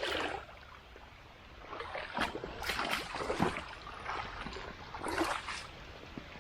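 Fast-flowing floodwater rushing and gurgling, with irregular splashes from wading through knee-deep water, clustered from about two seconds in and again around five seconds.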